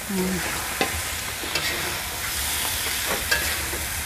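Julienned bamboo shoots sizzling in a wok as a metal spatula stirs them through fried spice paste, with a few clicks and scrapes of the spatula against the pan.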